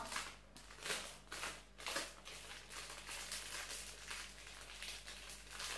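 Thin clear plastic crinkling and crackling in the hands as a portion of fermented pork-and-cabbage mixture (naem) is wrapped in it, with a few louder crackles in the first two seconds.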